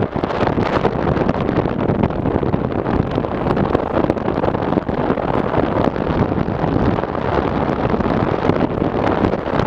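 Wind buffeting the microphone on a moving bike: a steady, loud rushing noise, with road and vehicle noise underneath.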